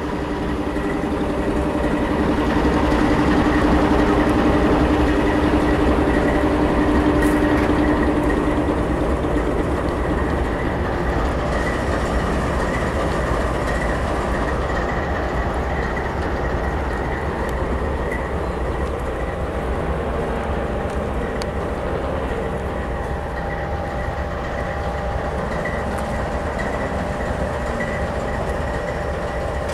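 Union Pacific diesel-electric locomotives rolling slowly past close by: a continuous engine drone and rumble of wheels on rail, with a steady high tone over it throughout. It is loudest in the first several seconds and eases slightly as the units move on.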